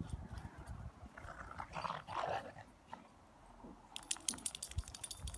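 Small pocket pit dogs at play: a brief dog vocalization about two seconds in, then a burst of rapid crackling clicks near the end.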